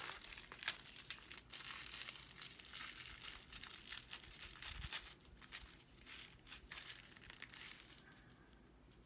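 Plastic packaging crinkling and crackling as it is handled, fading out near the end.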